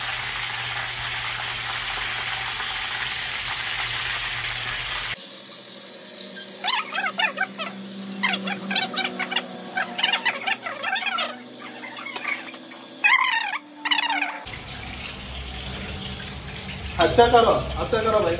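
Chicken pakodi batter frying in a kadai of hot oil, a steady sizzle. From about five seconds in, men's voices talk over it for most of the rest, and the sizzle comes up again near the end.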